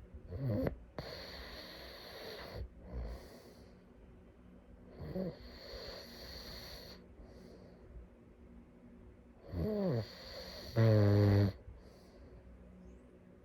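A sleeping person snoring: breathy snores recurring every few seconds, some sliding down in pitch, the loudest a steady, low buzzing snore near the end.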